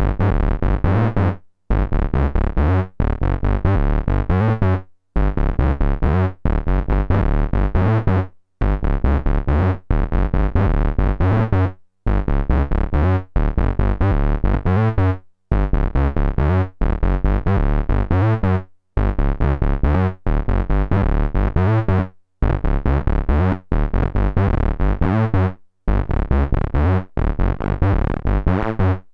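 Eowave Orage analog complex oscillator playing a sequenced, bass-heavy synth pattern, its pulse width modulated by an LFO whose rate is being changed. The phrase repeats about every three and a half seconds with a short break between.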